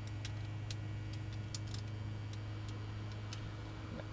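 Pak-A-Punch manual key punch being worked: scattered light clicks, then one sharp, loud snap at the very end as the punch cuts a key blank. A steady low hum runs underneath.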